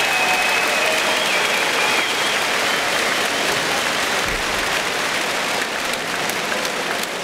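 Large arena crowd applauding, with a few voices calling out over it in the first couple of seconds.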